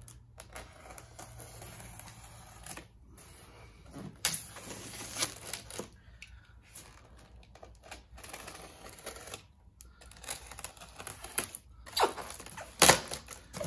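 Box cutter slicing through packing tape along the seams of a polystyrene foam crate, with irregular scratching and scraping of blade and hands on the foam and one sharp click near the end.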